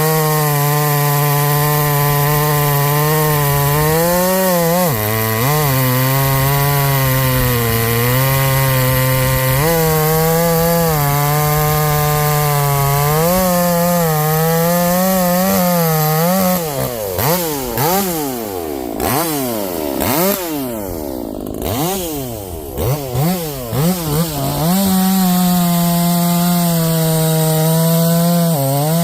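Muffler-modded Harbor Freight Portland two-stroke chainsaw held at full throttle cutting white oak with a dull stock chain, its pitch sagging and recovering under the load. From about 16 to 25 seconds in it is out of the cut and revved up and down rapidly, then goes back to steady full throttle.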